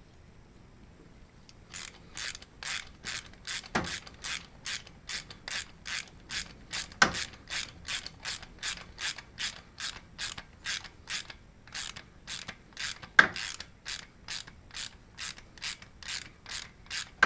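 Ratchet clicking in quick, even strokes, about three a second, starting about two seconds in, as it works a valve spring compressor on the cylinder head. A few sharper metal knocks stand out among the strokes.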